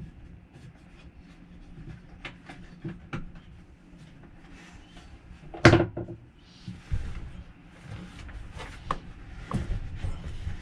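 Knocks and clunks of RV interior furniture being worked loose and pulled out, with one loud bang about halfway through.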